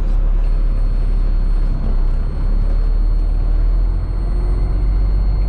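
Cement truck's diesel engine running steadily, a deep even rumble with no change in pace.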